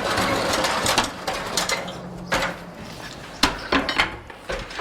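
Ceiling demolition clatter: wooden furring strips and debris being pulled down, a rush of falling debris at the start followed by several sharp knocks and clacks of wood and metal.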